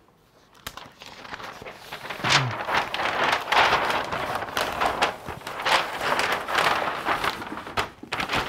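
Large flipchart paper sheets rustling and crackling as they are handled and flipped over on the easel, starting about two seconds in.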